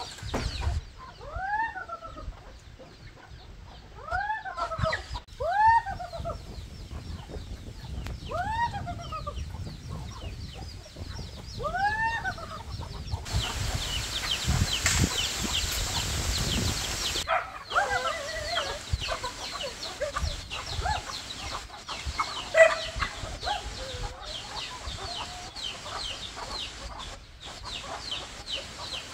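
Free-range chickens calling: single rising-and-falling squawks come every two seconds or so, followed by a few seconds of steady hiss, then softer, more varied clucking with one sharp click.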